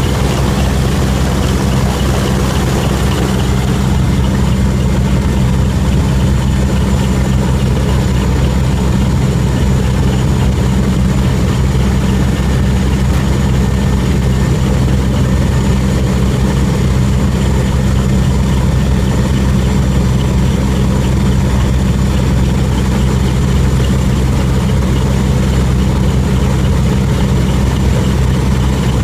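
Military transport aircraft's engines droning steadily, heard from inside the cargo hold with the rear ramp open in flight. A deep, even hum sits under a thin high whine and a wash of air noise.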